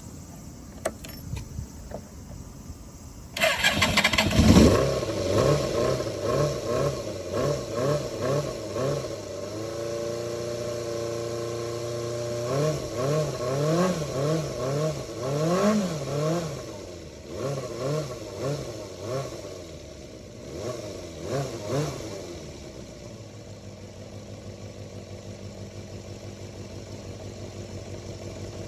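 Suzuki Bandit 250 V inline-four motorcycle engine, breathing through a replacement silencer, starting up about three seconds in. It is then blipped up and down repeatedly, with a short steady hold in the middle, and settles to a steady idle near the end.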